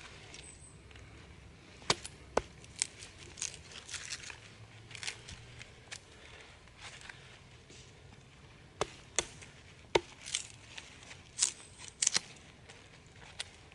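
Irregular sharp chops and cracks of wood being cut or split for a campfire, a dozen or so strikes with uneven gaps between them.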